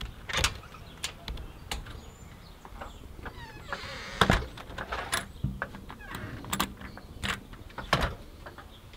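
House front door and glass storm door being opened and shut: a run of latch and handle clicks and knocks, the loudest about four seconds in and another near the end.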